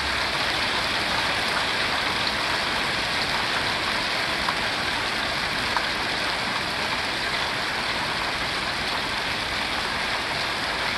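Hail mixed with rain falling steadily, a dense even patter on a wet paved driveway and gravel, with a few separate faint ticks of stones.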